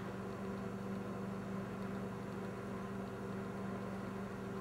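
Steady low electrical hum over a faint hiss.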